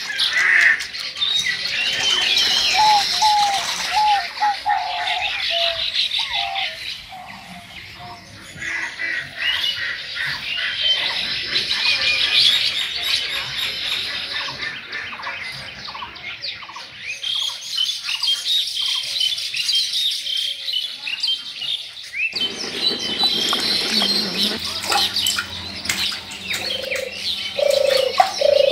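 Many small birds chirping and calling at once in a busy outdoor chorus, with a dove cooing a few low notes near the end.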